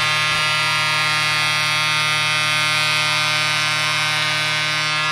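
Arena goal horn sounding one long, steady blast, marking a home-team goal.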